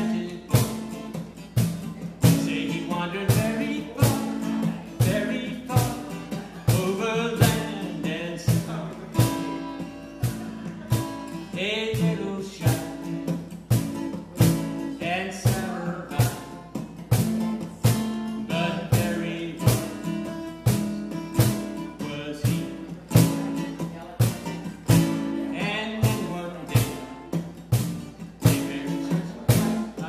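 Man singing with a cutaway acoustic guitar, strummed steadily at about two strokes a second.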